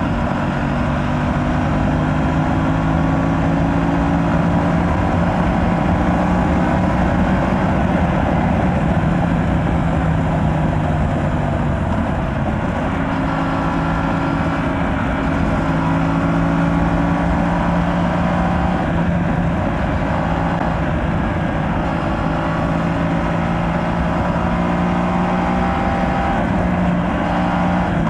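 Aprilia RS 457 parallel-twin engine through its stock exhaust, pulling steadily while the bike is ridden. The engine note rises and eases off with the throttle, and dips clearly about twelve seconds in before climbing again.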